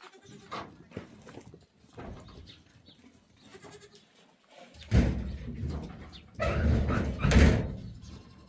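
Goats bleating: faint calls at first, then loud close calls about five seconds in and again about a second and a half later.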